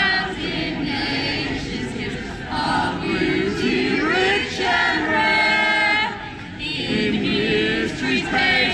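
A large crowd singing together in unison, many voices holding and gliding between long notes, with a short lull just past the middle.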